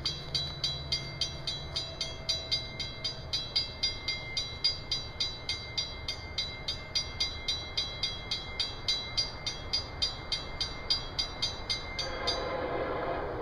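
Railroad grade-crossing warning bell ringing in rapid, even strokes, three to four a second: the crossing signals are active and the gate arm is lowering for an approaching train. The bell cuts off abruptly about twelve seconds in, as the gate reaches the down position, and a rising rushing noise follows.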